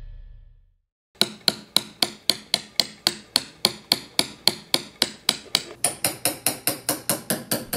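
Small metal-headed hammer tapping a carving chisel into a wooden printing block. The light, sharp strikes come in a steady rhythm of about three and a half a second, a little quicker near the end.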